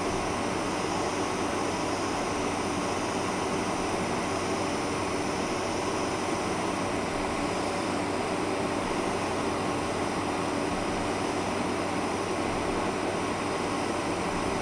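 Steady cabin noise inside a Boeing 747-400 as it taxis: a constant jet-engine hum with a few faint steady tones under the air-conditioning hiss.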